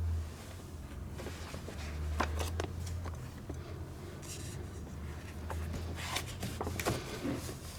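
Room tone with a steady low hum and scattered faint rustling and clicking.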